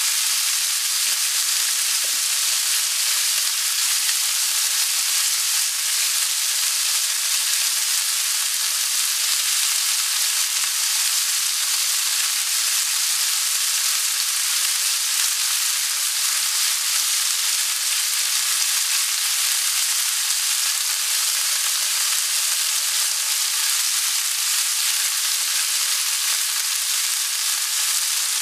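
Cubed chicken breast frying in hot olive oil in a stainless steel sauté pan: a steady, a little loud sizzle as the meat sears undisturbed.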